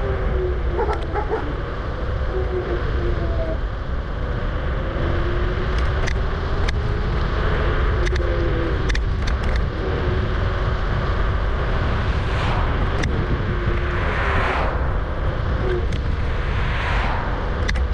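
Riding noise from a Kugoo G-Booster electric scooter on the move: wind buffeting the microphone with road rumble, and a thin wavering whine from the hub motors. Scattered sharp clicks come from bumps, and louder rushing swells come about twelve, fourteen and seventeen seconds in.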